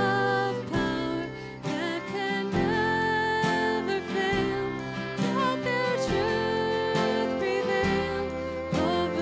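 A woman singing a worship hymn with instrumental accompaniment, holding notes with vibrato.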